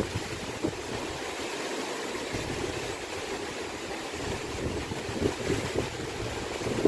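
Rough sea surf and strong wind, a steady rushing noise, with gusts buffeting the microphone now and then and a sharper gust near the end.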